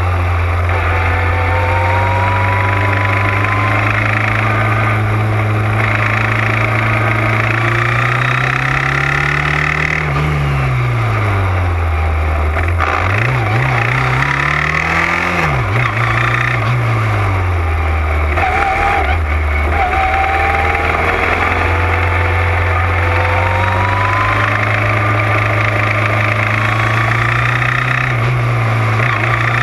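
Onboard sound of a small open-wheel race car's engine at racing speed. The revs hold steady, then climb and drop sharply twice between about ten and seventeen seconds in, and rise again near the end.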